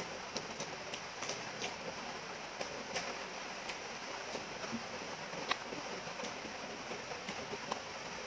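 A person eating rice and beef curry by hand, chewing with scattered soft clicks and smacks over a steady hiss.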